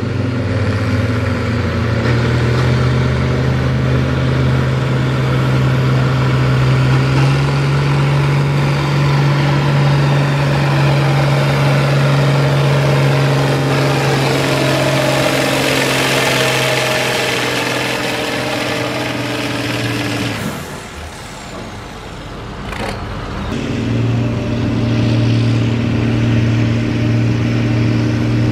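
International Harvester tractor's diesel engine pulling the weight sled under load. Its pitch steps up twice in the first seven seconds and it grows louder and harsher near the middle. About twenty seconds in, it cuts off and a John Deere tractor's engine takes over, running steadily.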